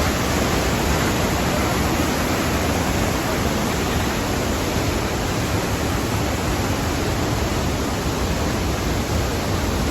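The Rhine Falls' water pouring: a loud, steady rush of falling water.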